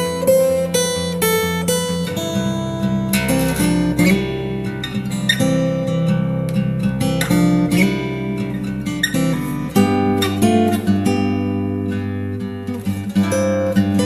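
Background music: acoustic guitar playing picked notes over held chords, changing chord about two seconds in and again near ten seconds.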